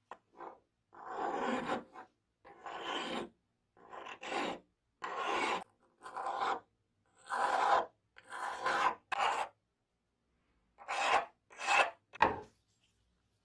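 Flat hand file rasping across a cast metal tape-dispenser lever in separate strokes, about a dozen, with a pause of about a second near the end: filing off leftover casting marks.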